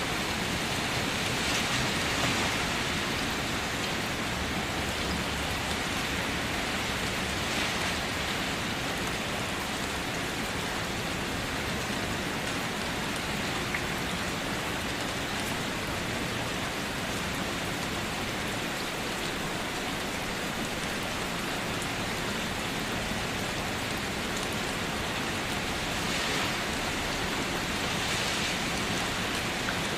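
Steady rain falling: a continuous even hiss of rain on a surface, swelling slightly a couple of times.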